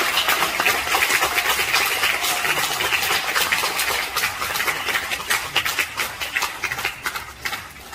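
Audience applauding, the clapping thinning out and fading away over the last few seconds.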